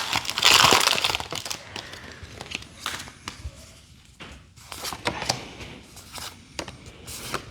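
Foil booster-pack wrapper crinkling as a Pokémon card pack is opened, loudest in the first second or so, followed by quieter rustles and light ticks of the cards being handled.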